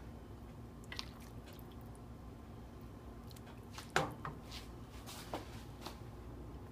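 A ladle dipping into a pot of pozole broth and pouring it into a bowl: soft liquid splashes and a few light knocks, the clearest about four seconds in.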